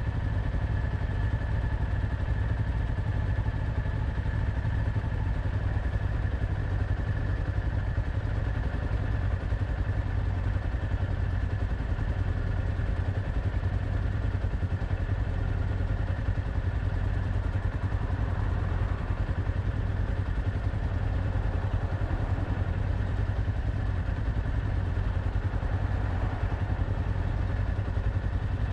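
Kawasaki Ninja 500's parallel-twin engine running steadily, with a low drone and no changes in pitch.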